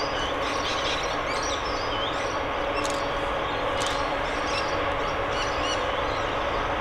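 Distant CSR-class diesel freight locomotives running, a steady drone with a few held tones, while small birds chirp over it.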